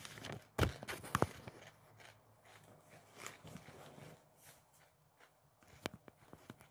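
Handling noise close to the microphone: two sharp knocks about half a second and a second in, then faint rustling and small clicks as things are moved about.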